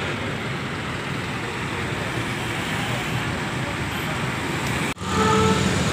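Primajasa intercity coach driving out past, its engine and tyres a steady noise among the terminal's traffic. About five seconds in the sound cuts off for a moment and a louder traffic sound with a few steady tones takes over.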